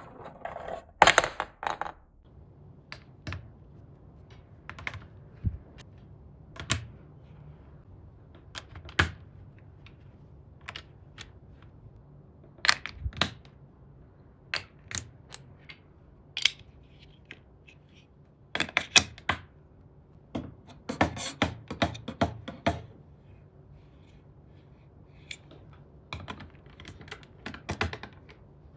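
Plastic interlocking building bricks handled and pressed together by hand: scattered sharp clicks and light knocks, coming in quick flurries a little past the middle and again about three-quarters through.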